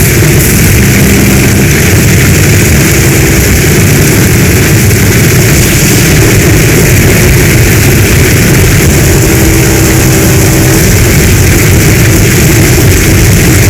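Heavy storm rain: a steady, loud rush of downpour with a deep rumble underneath.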